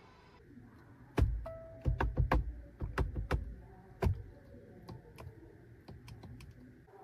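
Sharp clicks and knocks from a Geely Xingrui's electronic gear-selector knob being gripped and moved, most of them between about one and four seconds in. A short beep sounds among the first clicks, followed by fainter ticks.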